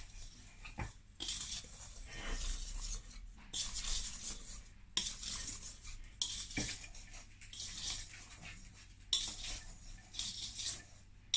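Wire whisk stirring a dry flour mixture in a stainless steel mixing bowl: a scratchy scraping of the wires against the metal in bouts of one to two seconds, with short pauses and a few clinks.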